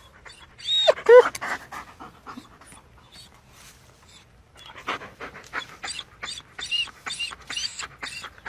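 A dog gives a short whine about a second in. In the second half it pants, about two breaths a second, each with a faint high whimper.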